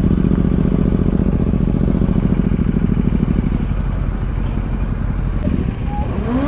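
Motorcycle engines idling close by, a steady low throbbing that drops back to a quieter rumble about two-thirds of the way through.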